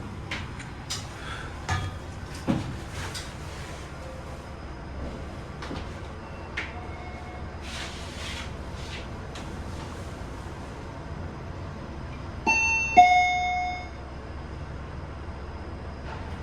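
Fujitec elevator car travelling with a steady low hum and a few small clicks and knocks, then about twelve seconds in its two-note arrival chime sounds, a higher note followed by a longer lower one, signalling that the car has reached its floor.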